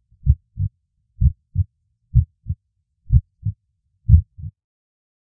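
Heartbeat sound effect: five lub-dub double thumps, low and dull, about one pair a second, stopping about four and a half seconds in.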